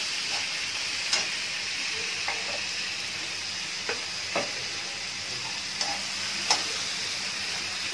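Chopped vegetables sizzling in hot oil in a steel kadhai, with a steady hiss. A slotted metal spoon stirring them clicks and scrapes against the pan now and then.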